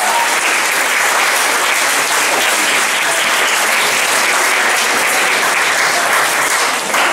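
Audience applauding steadily after the compere's closing thank-you at a comedy show.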